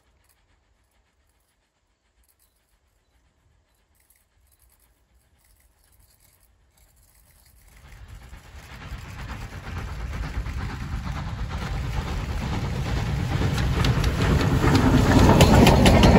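Near silence for about the first half, then the Somerset & Dorset 7F 2-8-0 steam locomotive 53808 approaching under steam with a goods train. Its running noise grows steadily louder, reaching its loudest as it passes close near the end, with wheels clicking over the rails.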